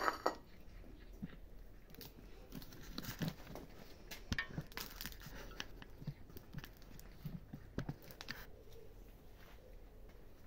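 Kittens eating diced sausage from a plate: many small, uneven chewing and biting clicks, busiest through the middle. It opens with a brief clatter as the plate is set down on the concrete floor.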